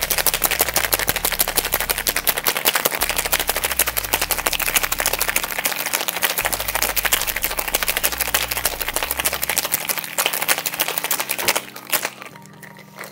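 Ice rattling fast and hard inside a metal cocktail shaker as a cocktail is shaken with ice. The rattle stops about a second and a half before the end, followed by a couple of single knocks.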